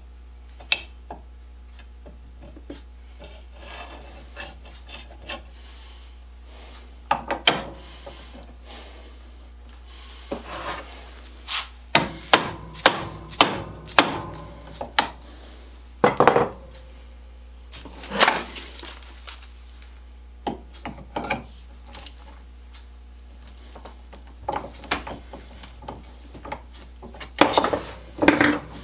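Wrench and hand tools clinking and knocking against a hand rod cutter's metal body on a wooden workbench as a nut is tightened. Scattered sharp knocks, with a quick run of them in the middle and a few more near the end, when a rod is pushed into the cutter.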